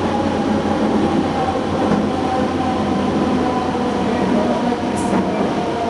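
Cabin of a moving UTDC ICTS Mark I rapid-transit car: steady running noise of wheels on rail, with the constant hum of its linear induction motors.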